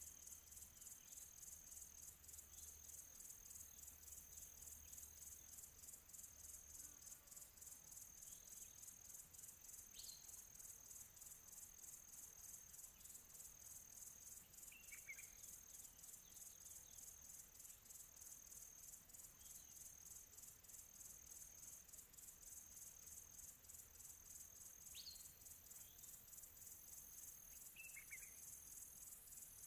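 Near silence with a faint, steady, high-pitched insect trill and a few short high chirps scattered through.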